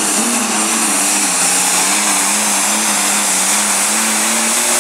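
Diesel pulling tractor engine running flat out under heavy load as it drags a weight-transfer sled, its rear tyres spinning. One steady, loud engine note that sags slightly in pitch, with a strong high hiss over it.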